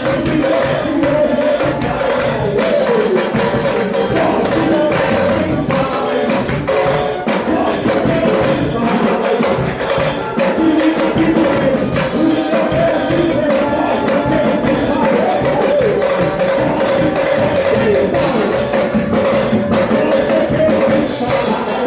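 A band playing music with a busy, steady percussive beat.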